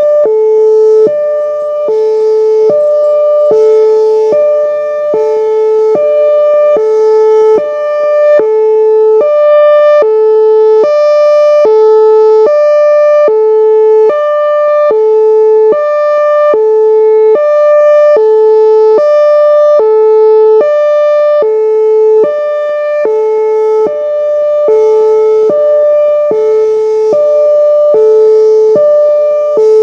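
Whelen Vortex R4 rotating electronic outdoor warning siren sounding its Hi-Lo signal: a low tone and a higher tone alternating about once a second, loud, swelling and fading as the rotating head sweeps past.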